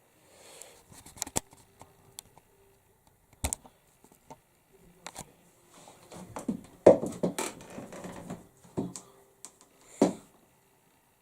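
Scattered clicks, taps and handling noises at a computer desk, with a busier, louder stretch of knocks and rustling about seven seconds in and a sharp knock near the end.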